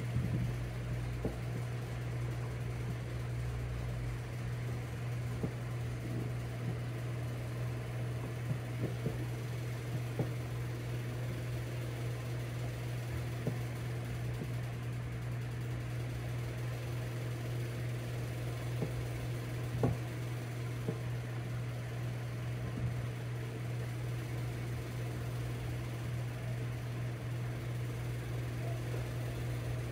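A steady low hum throughout, with scattered light knocks and taps from a kitten pawing and nudging a hair straightener on a wooden floor; the sharpest tap comes about two-thirds of the way through.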